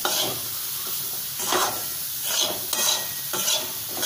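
A metal spatula scraping and stirring ghee-roasted finger millet (ragi) flour in a metal kadhai, in about six short strokes, over a steady low sizzle of the hot ghee.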